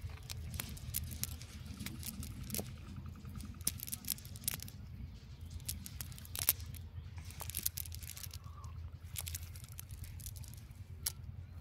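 Irregular sharp clicks and crackling rustles as a cast net is handled and the catch is picked out of its mesh by hand, over a steady low rumble.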